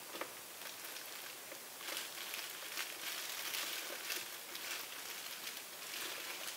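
Soft, irregular crackling and rustling of thin plastic gloves and plastic sheeting as hands handle and tilt a wet acrylic-pour canvas.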